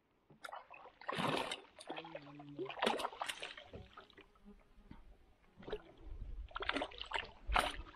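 Water splashing as a hooked peacock bass thrashes at the surface beside a wooden boat. Several sharp splashes come with softer sloshing between them; the loudest are about a second in, around three seconds in and near the end.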